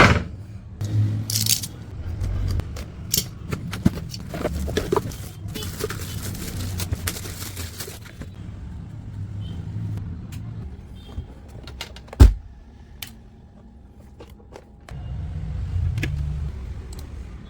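Packaging being handled during an unboxing: irregular rustling, scraping and clicks, with a sharp knock about twelve seconds in.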